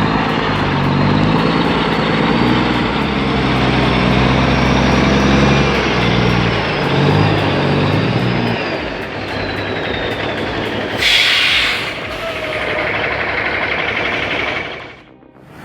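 Heavily loaded Mack truck's diesel engine labouring under load, dropping away about eight seconds in. A short, sharp hiss of air, typical of an air brake, follows about eleven seconds in.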